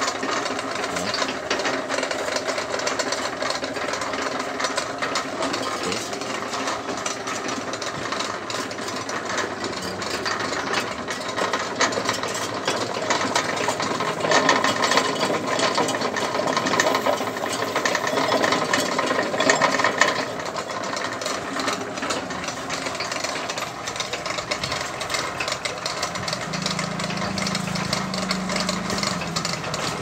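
Vertical pellet mill driven by a washing-machine motor through a V-belt and pulley, running with a dense rattling clatter from the drive and roller mechanism. The clatter grows louder for a few seconds in the middle, and a lower hum joins near the end.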